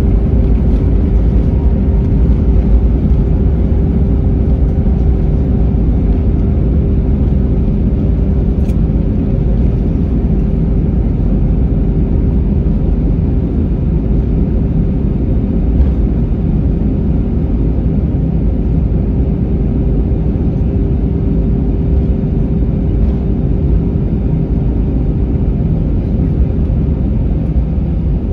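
Cabin noise of an Airbus A320-family airliner rolling out on the runway and taxiing after landing: a steady low rumble of wheels and idling engines under a constant hum, easing slightly as the aircraft slows.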